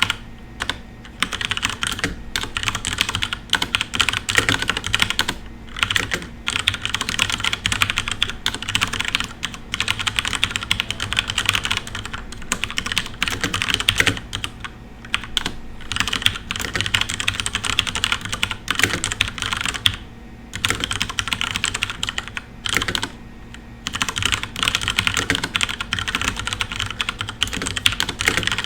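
Fast, continuous typing on a FILCO Majestouch Ninja Tenkeyless mechanical keyboard with brown (tactile, non-clicky) switches, a rapid stream of key clacks broken by a few short pauses.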